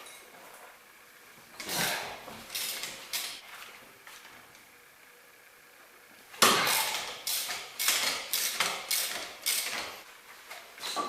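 Short knocks and scrapes of hand tools working on the car, a few about two seconds in, then a longer run of about two a second in the second half.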